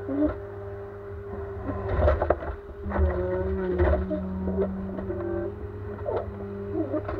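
Ponsse Elk forwarder's diesel engine running with the crane's hydraulics whining, the pitch shifting as the crane works. Logs knock and clatter as the grapple lets them drop onto the pile about two seconds in and again around three to four seconds in.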